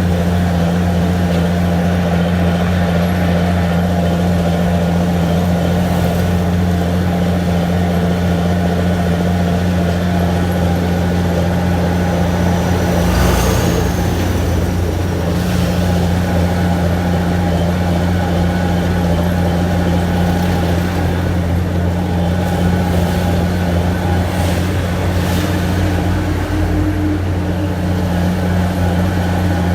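Heavy diesel engine of road-milling machinery running steadily with a low hum, under a continuous grinding haze. About halfway through there is a brief louder moment with a short rising high-pitched squeal.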